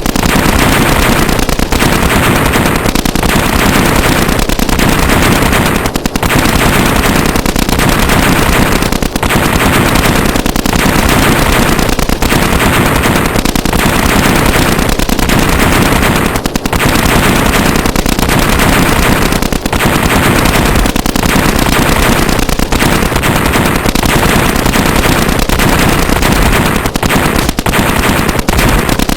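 Sustained, loud machine-gun fire, the shots so rapid and dense that they merge into one continuous racket, broken by short lulls every second or two.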